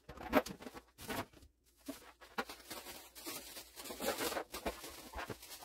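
Irregular rustling and light knocks of household items being handled and sorted in cardboard boxes and plastic bins.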